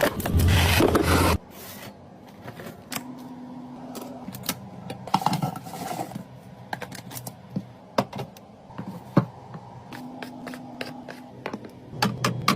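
Items and packaging being handled while a mini fridge is restocked: scraping and rubbing with scattered light clicks and taps. A loud rushing noise fills the first second and a half, then cuts off suddenly.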